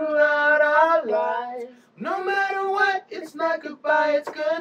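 Singing voice holding long, steady notes of up to about a second each, with short breaks between phrases and no instruments behind it.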